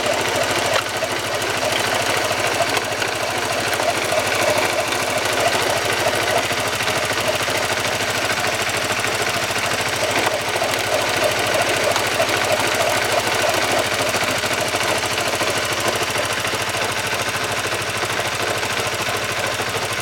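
Honda CBR150R's single-cylinder engine running, heard close at the clutch-side cover, with a steady metallic knocking and churning rattle from inside. The noise comes from a broken bearing inside the engine and a noisy clutch housing.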